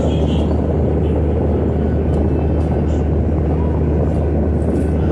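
A steady, loud low rumble with a constant hum under it, unchanging throughout, with a few faint soft clicks on top.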